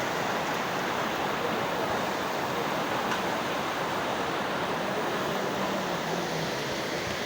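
Fast-flowing floodwater rushing steadily, an even wash of water noise with no breaks.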